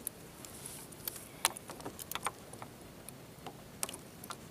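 Scattered light clicks and taps, about eight in a few seconds, from a lure and hooks being worked free of a lake trout in a landing net on a kayak.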